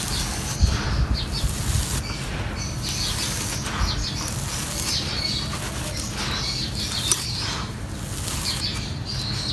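Dry, gritty sand and fine gravel being scooped by hand and poured back onto a pile: a rushing, pattering hiss of falling grains that swells and fades with each pour, with soft crunching as the hands dig in.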